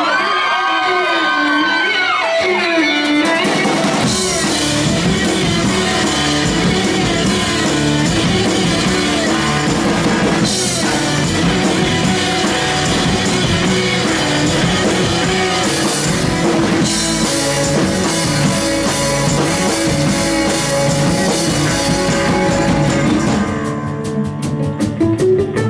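Live rock band music: a violin line plays alone at first, then drums and guitar come in with the full band about four seconds in. The texture thins near the end.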